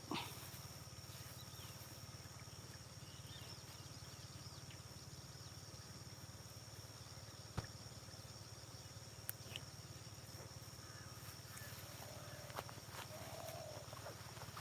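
Faint early-morning outdoor field ambience: a steady low hum under a thin, steady high-pitched tone, with a few faint chirps and a handful of sharp clicks.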